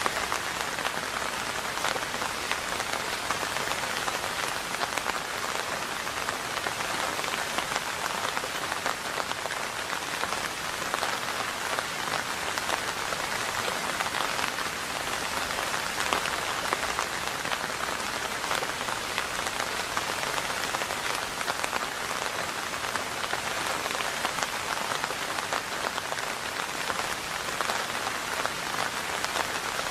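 Steady rain falling on a surface: many small drop impacts over an even hiss, with no change in strength.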